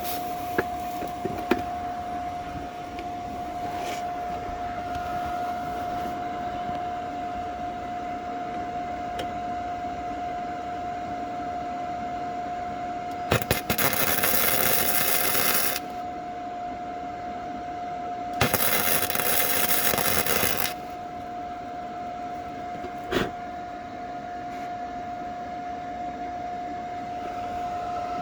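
100-volt welder running two short welds on a steel car frame, each a crackling, sizzling burst of about two seconds, about 13 and 18 seconds in. A steady high hum runs throughout, with a few sharp clicks near the start and a single knock later.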